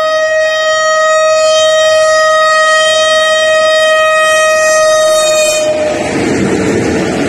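Diesel locomotive horn sounding one long, steady note for nearly six seconds as the train approaches. It cuts off as the locomotive draws level, and the rumble of the locomotives and freight wagons rolling past takes over.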